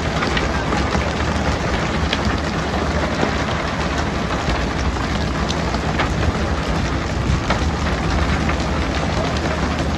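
Motorboat engine humming steadily under a constant rushing noise, with faint scattered ticks through it.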